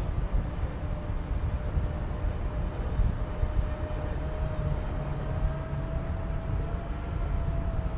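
Radio-controlled model airplane's motor whining steadily overhead, its pitch creeping up slightly, under heavy wind rumble on the microphone.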